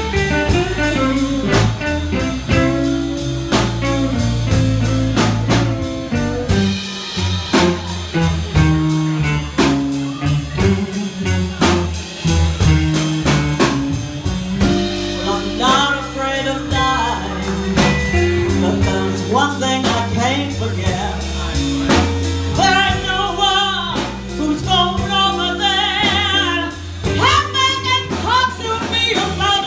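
Live blues band playing: a drum kit keeps a steady beat under moving bass and guitar, and about halfway in a lead line with heavy vibrato comes in on top.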